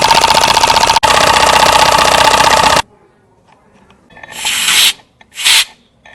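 Homemade PVC air compressor running with a loud, rapid rattle that cuts off suddenly about three seconds in. Three short hisses of air follow near the end.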